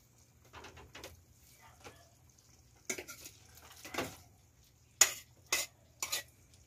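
A metal ladle stirring and scraping in a metal wok of simmering squid. Several light clinks come through the first half, then three sharp clanks of metal on the wok in quick succession about five seconds in.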